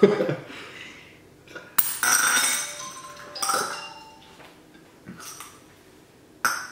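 A quarter bounced off a tabletop into a drinking glass. It hits with a sharp click about two seconds in and rings briefly on the glass. A second clink with a short ring follows about a second and a half later.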